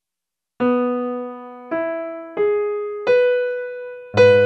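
Background music: a piano plays a slow melody of single notes, each struck and left to fade, starting about half a second in. A fuller chord with low bass notes joins near the end.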